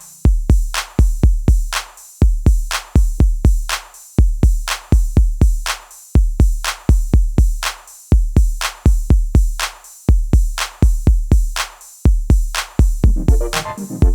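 Background music: an electronic beat of drum-machine kicks and hits in a steady, repeating rhythm.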